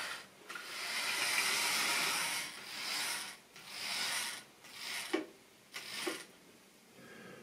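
Model train running on the layout's track: a rasping mechanical whirr of motor and wheels that swells and fades in surges about once a second, dying away about six seconds in.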